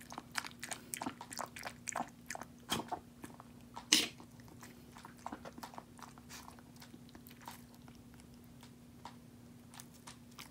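Two-month-old Jack Russell terrier puppy eating, chewing and crunching her food in quick small clicks. The clicks are busiest in the first half, with one louder click about four seconds in, then thin out.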